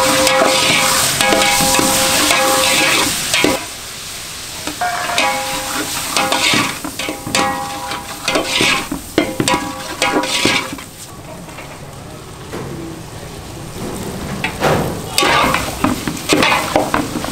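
A long metal ladle stirring and scraping in a steel pot as diced chicken fries and sizzles in oil over a gas flame. Vegetables go in partway through, and the stirring and sizzling carry on, a little quieter in the second half.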